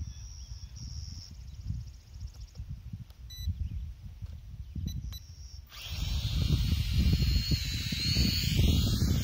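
Wind rumbling on the microphone, then, about six seconds in, a quadcopter's electric motors and propellers come in loud and sudden: a buzzing whine that rises and falls in pitch as it flies toward the camera.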